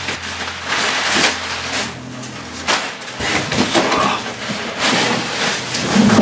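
Unpacking a large cardboard delivery box: crumpled packing paper rustling and cardboard boxes scraping and knocking against each other as items are lifted out, in a string of irregular bursts.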